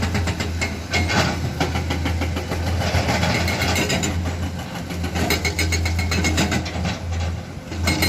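Diesel engine of heavy earthmoving machinery running steadily, with a strong low drone and fast, even firing pulses.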